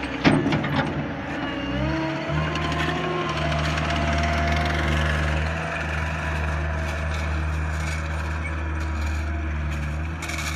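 Diesel engine of a Cat compact track loader running steadily, after a burst of clattering near the start as gravel is tipped from its bucket into the drain trench.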